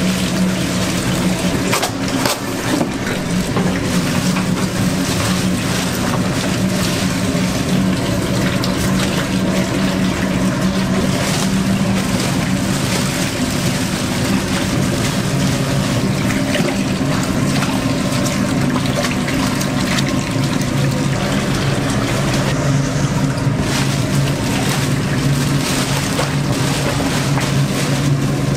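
Steady kitchen noise: a constant mechanical hum under running or bubbling water, with scattered clinks and knocks.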